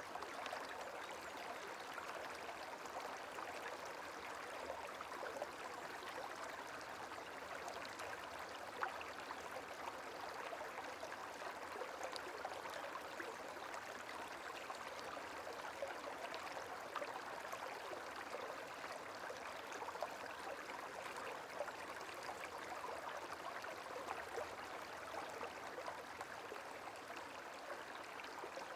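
Gently flowing water, like a small stream running steadily.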